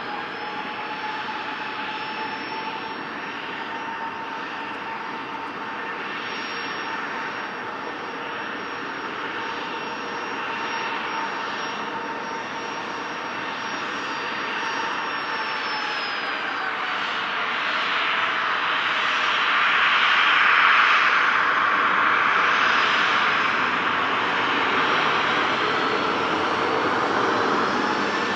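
Jet airliner's engines running with a steady whine. About sixteen seconds in the whine drops in pitch, and a louder rushing noise swells after it.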